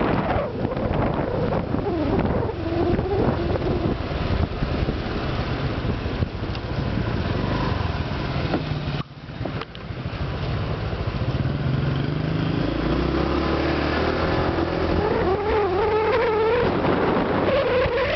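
Honda Vario 125 PGM-FI scooter's single-cylinder engine running under way. Its sound drops away briefly about halfway through, then climbs steadily in pitch as the scooter picks up speed. The owner believes the 'snore' sound has been cured by a new coil, spark plug and a wider stainless-steel muffler neck.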